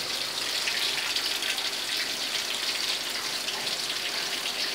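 Batter-coated small fish deep-frying in hot oil in a wok: a steady sizzling hiss with fine crackling.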